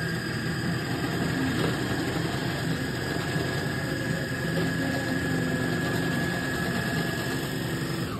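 Four-thread serger (overlock machine) running at a steady high speed: a dense, rapid stitching rattle with a steady high whine over it, starting suddenly and cutting off near the end.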